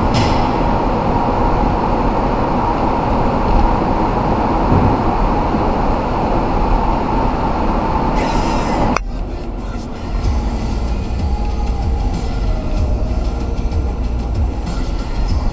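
Road noise of a moving car, tyres and engine, as a steady loud rumble while driving through a road tunnel. About nine seconds in it changes suddenly to a duller, lower rumble as the car is out on the open road.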